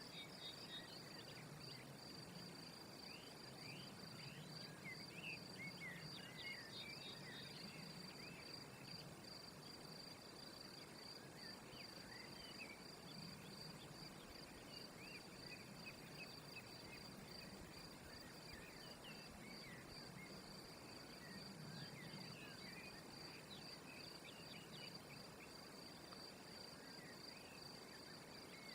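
Faint outdoor ambience: a steady, high insect trill, cricket-like, with scattered short bird chirps.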